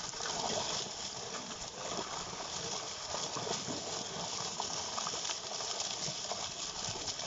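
Steady splashing and churning of water, with many small slaps and taps scattered through it.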